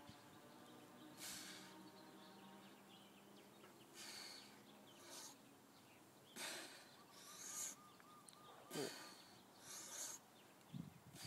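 Near silence with faint airy whooshes about once a second, in time with a heavy homemade 35 lb mace being swung overhead. A bird chirps briefly in a quick run of short notes about two-thirds of the way through.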